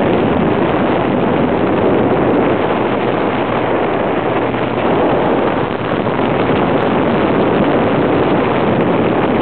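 Steady wind noise buffeting the microphone over a Bayliner motorboat running under way across open water.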